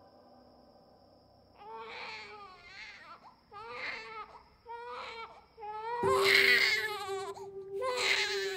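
A newborn baby crying: a string of short wavering cries starting about one and a half seconds in, with the loudest and longest cry about six seconds in.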